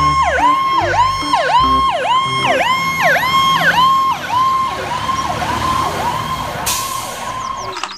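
Fire truck siren sounding a fast yelp, its pitch dipping and climbing back about twice a second, as the ladder truck drives past. The siren grows weaker in the second half.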